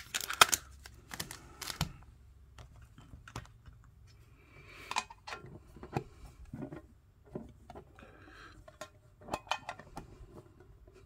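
Small metal trading-card mini tins being handled and opened: a quick run of sharp clicks and taps at first, then scattered taps with a couple of short rustles, and more clicks near the end.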